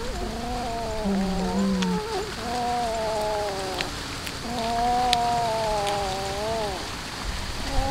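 A cat yowling while it eats raw fish: about four long, drawn-out calls, each a second or two long and bending in pitch at the end. A few short, sharp crunches of chewing come between them.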